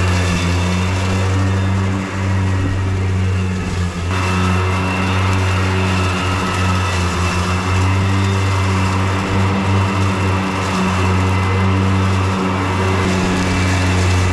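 EGO 42-inch electric zero-turn mower running its blade motors while cutting grass: a steady electric hum with a hiss of grass being cut that grows louder about four seconds in. The blades are a freshly fitted new set, spinning smoothly.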